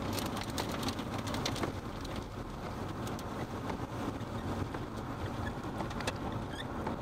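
Steady rushing noise of wind and a vehicle, heard from inside the chase vehicle, with a few faint clicks in the first second or two.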